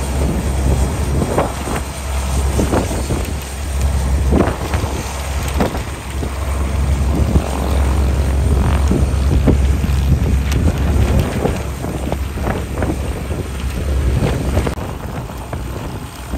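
Beech 18's twin radial engines running as it taxis, a steady low rumble with wind gusting on the microphone. The engine rumble drops away near the end.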